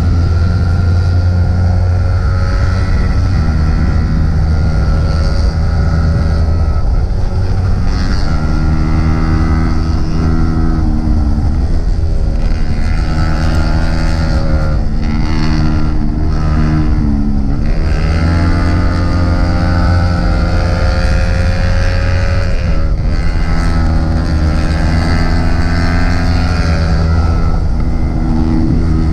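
Yamaha R15 single-cylinder sportbike engine running under way, heard from the bike itself with wind rushing over the microphone. The engine note drops and then climbs again about halfway through as the rider backs off and gets back on the throttle.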